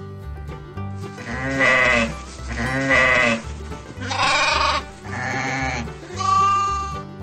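Sheep bleating five times in a row, starting about a second in, each call under a second long, over background music.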